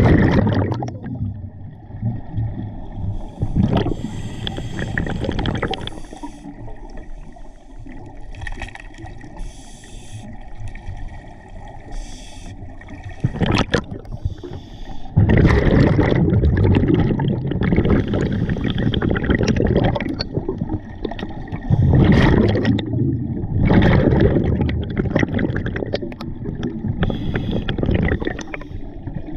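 Scuba diver breathing through a regulator underwater: gurgling bursts of exhaled bubbles every few seconds, with quieter hissing between them.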